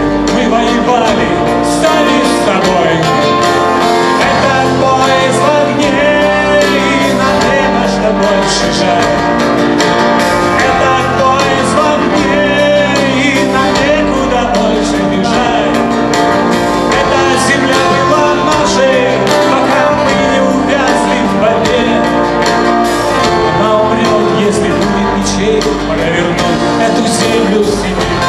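A live band plays a song on acoustic guitars and a drum kit, with a man singing over it.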